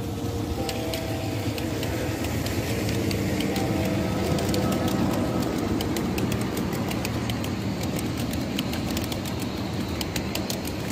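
Ride-on miniature train rolling past: a steady low mechanical hum under the clatter of small steel wheels over the rail joints. The clicks come faster and thicker as the cars go by, and the sound is loudest in the middle.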